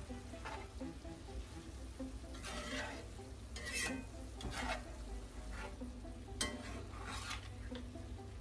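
Slotted metal turner stirring and scraping ground beef and black beans around a cast-iron skillet, in a series of short scraping strokes over a low sizzle from the pan.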